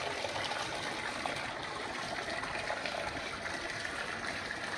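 Water running in a steady stream, as from a bathroom tap or shower.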